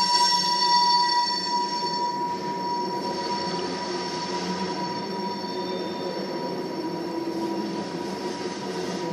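Railroad tank cars of a freight oil train rolling past, with a steady rolling rumble and a high, steady wheel squeal that is strongest in the first two seconds and then fades.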